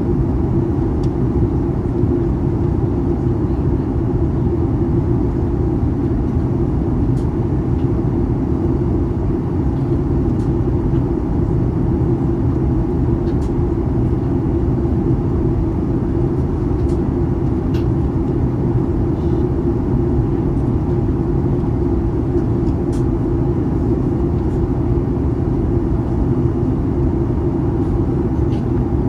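Steady, loud drone inside the cabin of a Boeing 737-900ER: engine and airflow noise, with a low hum from its CFM56-7B turbofans and no change in pitch or level.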